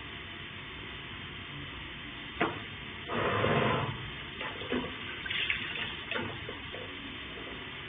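Water running or being poured for about a second, with a few knocks and clinks of kitchen utensils before and after it, over a steady hiss.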